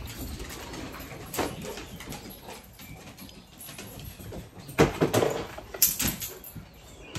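A golden retriever nosing at an open drawer of dog toys: soft rustles and short knocks, loudest about five seconds in.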